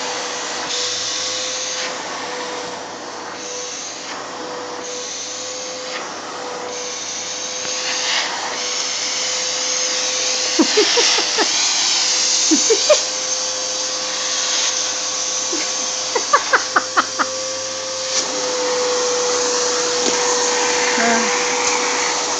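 Vacuum cleaner running steadily with a constant whine. A few sharp clacks come about ten seconds in, and a quick run of them near the middle-to-late part.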